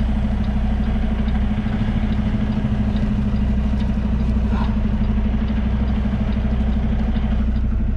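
Semi truck's diesel engine running steadily at low idle, heard from inside the cab, as the rig creeps backward toward a dock.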